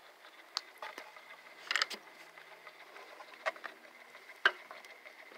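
Faint steady whine of a battery-powered Rapid Flyer Dove decoy's motor driving its flapping wings, with scattered irregular clicks and taps, the sharpest about four and a half seconds in.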